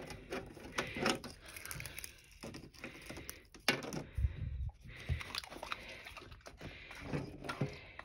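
Small clicks, light rattles and rustles of hands handling homemade jerky on a plastic food dehydrator's mesh tray, with a couple of soft low thumps about four and five seconds in.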